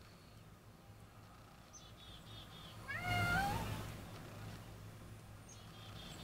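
A single short mewing bleat from a deer fawn, rising slightly in pitch, about three seconds in.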